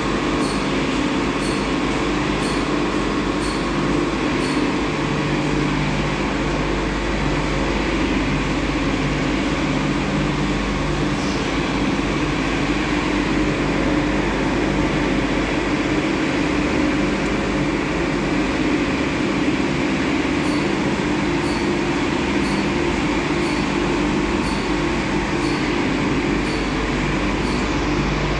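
Automatic car wash heard from inside the car: a steady rush of water spray and spinning wash brushes against the body and windows, with a faint light tick repeating a little more than once a second.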